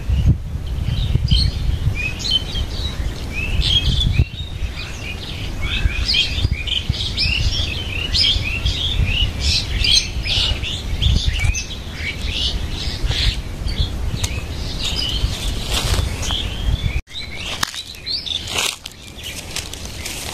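A chorus of birds chirping busily outdoors, many short overlapping calls, over a steady low rumble. The sound cuts out for an instant about seventeen seconds in, and the chirping resumes more sparsely.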